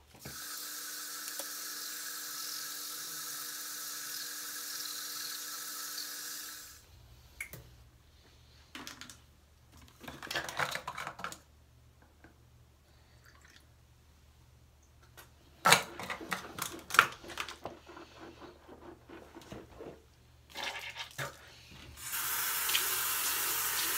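A bathroom sink tap runs steadily for about six seconds, then shuts off. Water splashes and small knocks follow while a face is washed at the basin. The tap runs again near the end.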